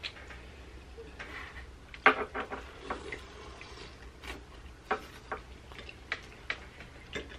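Close-up eating sounds from a seafood boil: irregular wet smacks and clicks from chewing and from picking apart shrimp, crab and corn. The loudest cluster comes about two seconds in.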